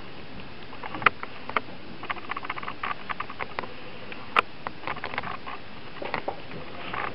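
Fingertips patting and rubbing eyeshadow onto an eyelid: a run of small irregular clicks and soft taps, with sharper taps about a second in, at a second and a half, and at about four and a half seconds.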